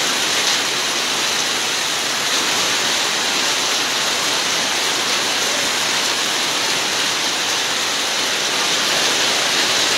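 Heavy rain falling: a steady, dense hiss of a downpour.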